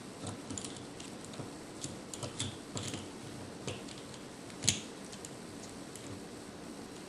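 Irregular light metallic clicks and taps as a small C-frame shaded-pole motor is put back together and its frame bolts are screwed in by hand, with one sharper click a little past halfway.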